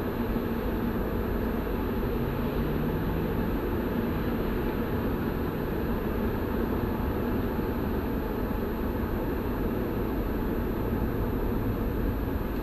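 Steady road and engine noise inside a car cruising at highway speed: an even low rumble with a faint engine hum.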